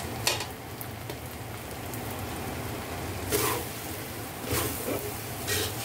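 Fried rice sizzling in a steel wok while a metal spatula stirs it, with a sharp clink shortly after the start and several louder scrapes of the spatula across the pan in the second half, over a steady low hum.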